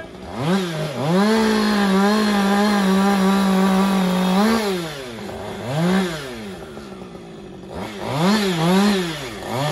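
Chainsaw revved up and held at full throttle for about three and a half seconds, then let back toward idle and blipped several times in short rise-and-fall revs.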